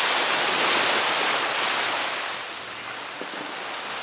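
Sea water rushing past a moving sailing yacht's hull with wind buffeting the microphone, a steady rush that drops somewhat in level about halfway through.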